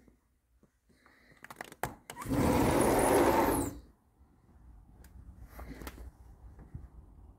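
Sliding glass patio door rolling along its track for about a second and a half, after a few clicks from its handle.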